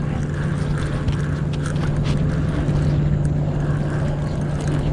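Boat motor running at a low, even speed, a steady hum, with a few faint clicks over it.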